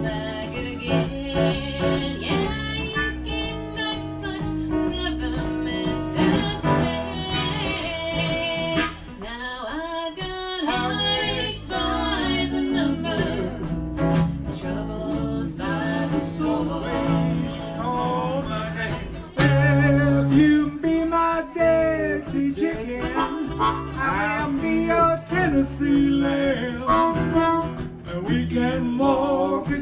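Live acoustic country-swing band music: two acoustic guitars strumming, with a harmonica playing melody lines over them. The music gets louder about two-thirds of the way through.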